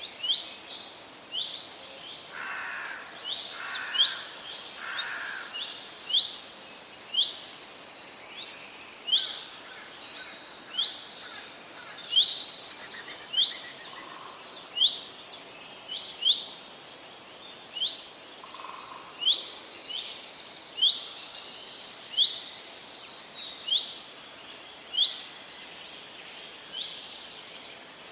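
Several birds singing and calling at once in a forest. Short, sharp whistled notes repeat about once a second over a busy chatter of higher calls and a steady background hiss.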